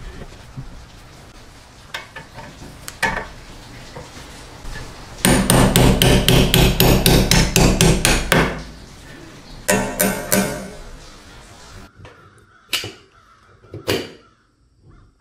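Hammer driving a chisel against an airgun's metal air tube: a fast run of sharp metal-on-metal blows, about five a second for some three seconds, starting about five seconds in, then a few more blows. Two single light knocks follow near the end.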